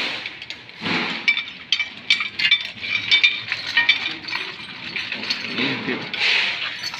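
Small metal parts and hand tools clinking and tapping against each other in quick, irregular ticks and short ringing pings.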